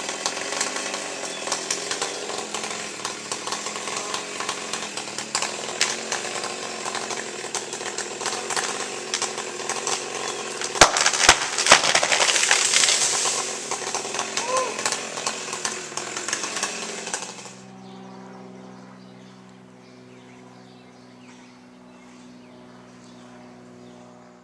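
Gas chainsaw cutting into a tree trunk, the engine revving and labouring. About eleven seconds in there are a few sharp, loud cracks as the wood gives. About seventeen seconds in the saw noise stops, and a quieter steady hum is left.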